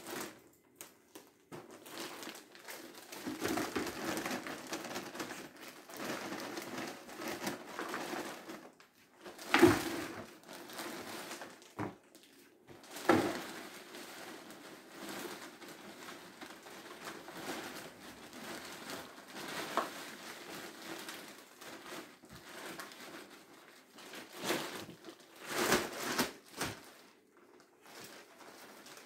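Plastic bag of potting soil crinkling and rustling as it is handled, with soil poured from it into a plastic plant pot. A few louder rustles stand out, about ten and thirteen seconds in and again near the end.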